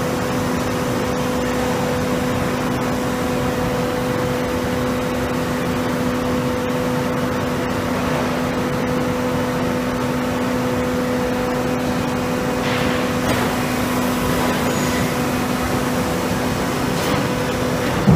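Steady hum of concrete paving-block production-line machinery, with two steady tones, one an octave above the other. The lower tone drops out about a second before the end.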